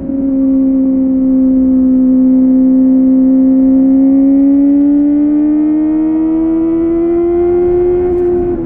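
Kawasaki ZX-4RR's inline-four engine running through a Yoshimura AT2 slip-on exhaust while riding. The note climbs steadily over several seconds, then breaks off briefly and drops in pitch near the end.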